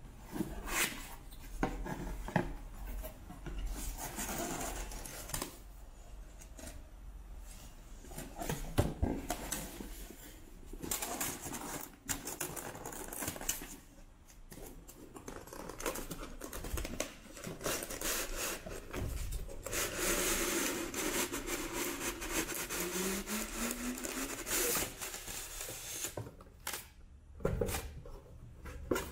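Cardboard box being opened by hand: tabs and flaps pulled, card rustling, scraping and knocking against a stone tabletop. Later comes a longer rubbing with a short rising squeak as the polystyrene foam insert is worked out of the box.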